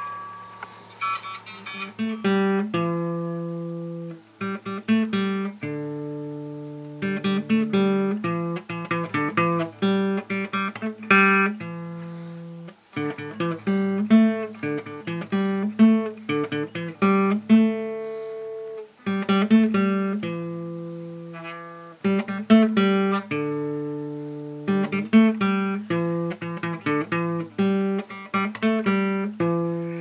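Background acoustic guitar music: a repeating picked melody over a bass line.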